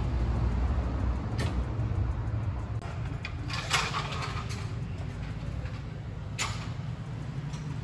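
Tyre-shop background noise: a low steady rumble with a few sharp knocks, the loudest about halfway through.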